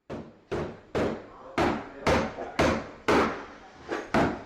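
Hammer blows struck in a steady rhythm, about two a second, each with a short ringing decay, while clearing space in the wall for a shower valve.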